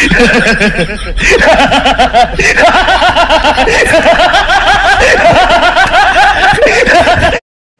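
A man laughing loudly and at length, a long run of rapid 'ha-ha' bursts rising and falling in pitch, which cuts off suddenly near the end.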